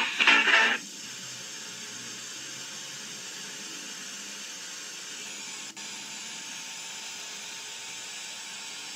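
Guitar-led background music cuts off about a second in, leaving a steady hiss of static, broken by a momentary dropout a little after halfway.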